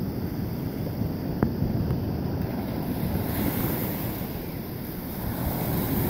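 Ocean surf washing onto the beach with wind buffeting the microphone. The hiss of the breaking waves grows stronger about three seconds in, and there is one short tick about a second and a half in.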